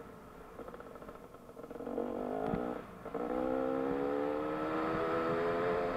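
Dirt bike engine heard from the bike itself: running low and quiet off the throttle for about two seconds, then opening up. After a short drop near three seconds, as at a gear change, it pulls with a steadily rising pitch.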